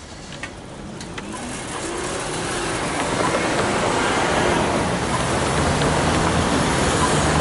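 Road traffic moving off and driving across a railway level crossing once the boom gates have lifted, the car noise growing steadily louder. Two faint clicks come in the first second or so.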